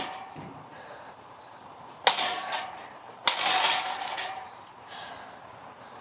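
Two sudden clattering strikes about a second apart, each rattling on for about a second with a faint ringing: the blades of a running ceiling fan knocking against something held into them.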